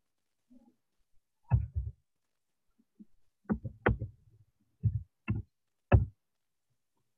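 About seven short, dull knocks at uneven intervals, several coming in pairs, picked up through a video-call connection.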